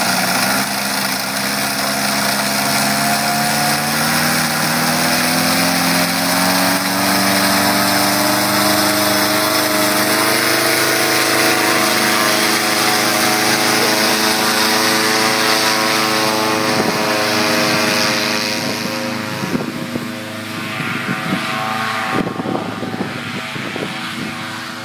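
Paramotor engine driving its propeller at high power, its pitch climbing steadily over the first several seconds and then holding. Near the end it throttles back and dies down, with a few short knocks.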